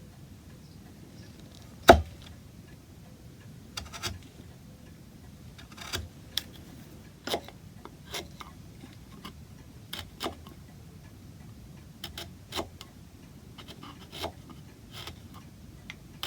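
Scattered light knocks and clicks of wood and hand tools being handled, with one sharper knock about two seconds in.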